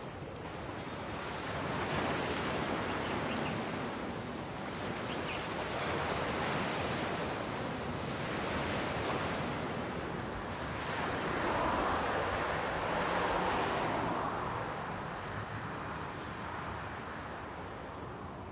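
Waves breaking on a pebble shore, the surf swelling and ebbing every few seconds, growing quieter near the end.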